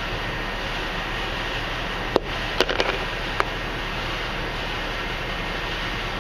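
A few sharp clicks and knocks from a vinyl composition tile being cut and worked with a carpet knife, clustered about two to three and a half seconds in, over a steady fan-like hiss.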